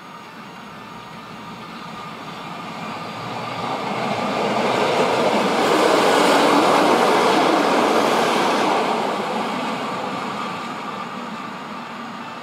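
A vintage CPH rail motor set passing close by on the track. Its engine and wheel noise grows as it approaches, is loudest for a few seconds around the middle as the cars go by, then fades as it runs away.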